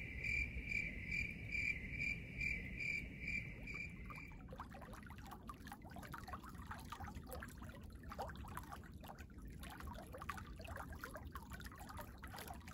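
A high, cricket-like chirping trill, pulsing about two and a half times a second, for the first four seconds. Then water dripping and trickling in many small irregular drops over a low steady rumble.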